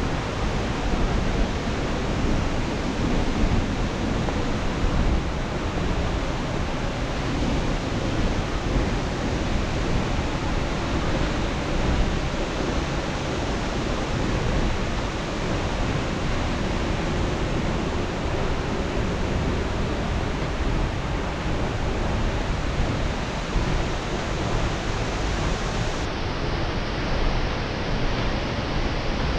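Steady rush of water from the Aberdeen Falls waterfall, an even noise that holds without a break.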